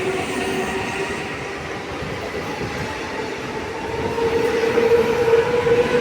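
Mumbai suburban electric local train accelerating: the electric motor whine climbs slowly in pitch over the running noise of the train. The whine grows louder about four seconds in.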